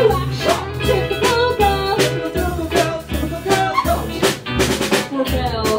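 Live band playing a song: a drum kit, electric guitars and keyboard, with a voice singing over them.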